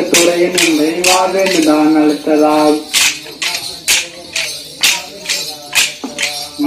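Wooden kolattam sticks clacking together in a steady rhythm, about two strikes a second. A voice sings a folk song over the first half, then stops and leaves the stick clacks alone.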